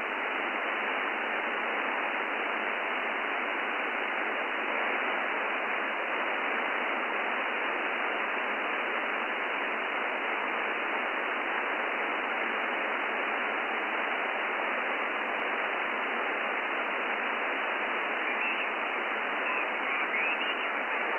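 Shortwave receiver static from a FUNcube Dongle Pro Plus software-defined radio in upper-sideband mode, tuned to a quiet stretch of the 17-metre amateur band. It is a steady hiss with no signal, cut off sharply above and below by the 200–3000 Hz sideband filter, which gives it a thin, telephone-like tone. Near the end, faint chirping traces come through the hiss.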